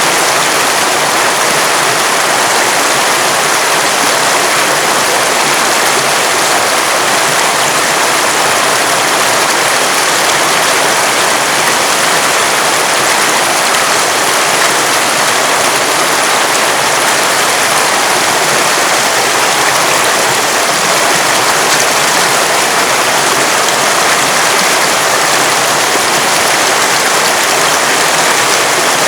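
River water running fast over rocks: a loud, steady rush with no changes.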